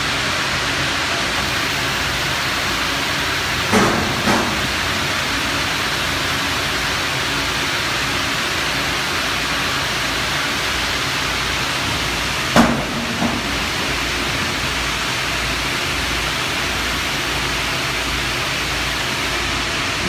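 Steady loud industrial roar of a furnace loading station, with a pair of sharp metal clanks about four seconds in and another pair past the middle as the Yaskawa Motoman robot handles metal ingots.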